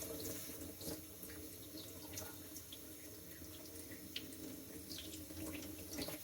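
Faint wet scraping of a thin Victorinox knife blade being stroked on a wet sharpening stone during reprofiling, with scattered small ticks.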